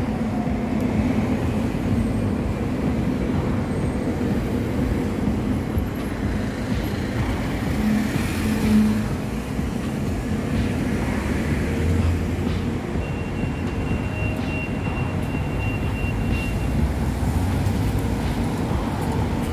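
Steady city road traffic: a continuous rumble of passing cars and other vehicles.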